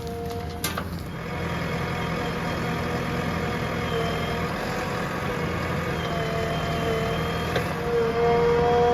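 Heavy diesel engine running steadily, with a whine that comes and goes over it and grows a little louder near the end.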